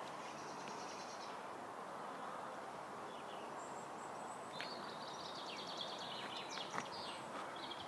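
Steady background hiss of open-air ambience, with small birds chirping and trilling on and off, most busily from about the middle onward.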